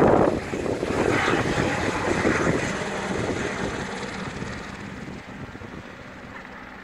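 Helicopter flying away after take-off, its rotor noise growing steadily fainter as it recedes.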